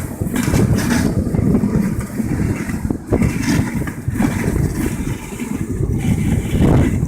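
Dog sled moving over snow: a steady low rumble and hiss from the runners, with wind buffeting the microphone and a few brief jolts.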